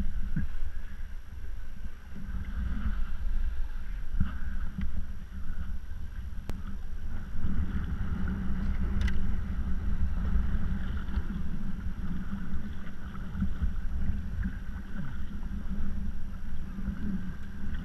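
Wind buffeting the microphone over choppy sea water lapping against the hull of an Ambush kayak, a steady rough rumble that rises and falls in gusts. A couple of faint clicks come partway through.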